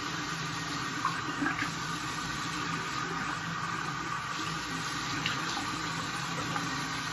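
Bathroom sink tap running steadily while a face mask is rinsed off by hand, with a few small splashes about a second in.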